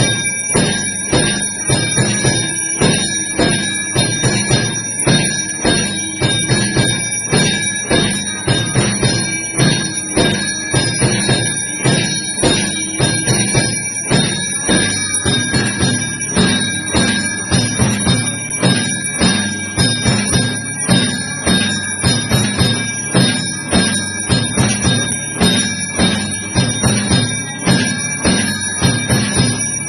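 Temple bells ringing steadily through an aarti, with rapid, regular percussive strikes beneath them.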